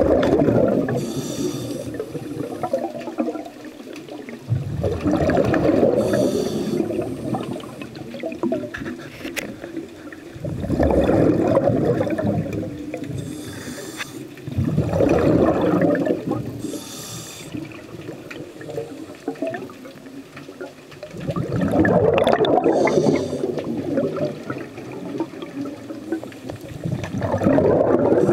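Scuba diver's regulator breathing underwater: a rushing burble of exhaled bubbles about every five to six seconds, with a higher, thinner hiss of inhalation between some of them.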